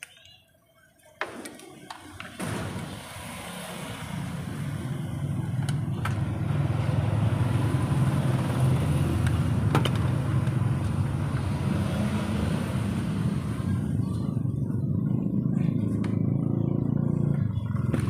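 A low, steady mechanical rumble of a running motor that swells over the first few seconds and then holds, with a few light handling clicks.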